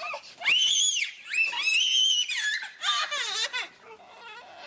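A small child squealing and laughing in several high-pitched, arching shrieks, with a quick run of short laughing pulses about three seconds in.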